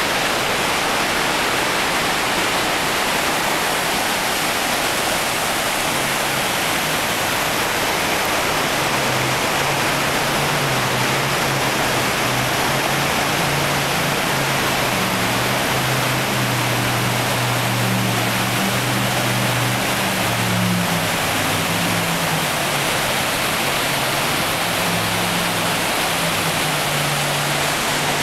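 Steady roar of Snoqualmie Falls in heavy flood flow and the churning river below it. From about eight seconds in, a jet boat's engine hums faintly under the roar, its pitch rising and falling as it works the rapids, fading out near the end.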